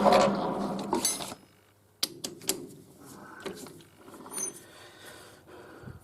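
A workshop machine tool running and then winding down to a stop in the first second or so, followed by scattered clicks and clunks of metal parts being handled.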